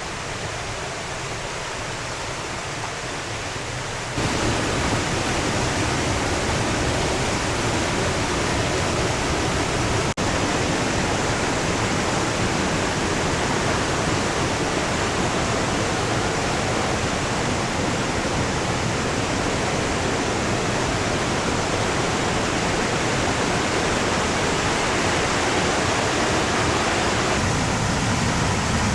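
Steady rushing of water falling over the rocks of a jungle waterfall cascade, stepping up suddenly in loudness about four seconds in.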